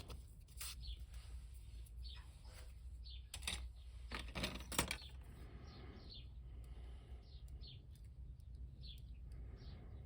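Light clicks and taps of small plastic parts being handled, with a few sharper clicks around the middle, as a sanded plastic rod is test-fitted into a toy backpack's peg hole.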